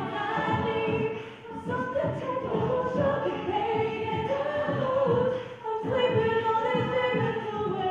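A cappella vocal group singing in harmony, several voices together with no instruments.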